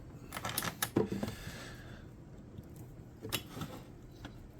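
Clicks and light rattles from the controls of a Homelite EZ chainsaw being worked by hand, its decompression lever and trigger latch snapping. There is a quick cluster of clicks with a short scrape in the first second or two, then a few single clicks.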